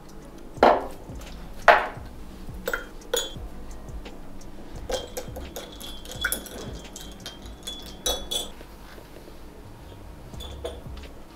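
Kitchen utensils knocking and clinking against pots and dishes: several separate knocks, the two loudest about a second apart near the start.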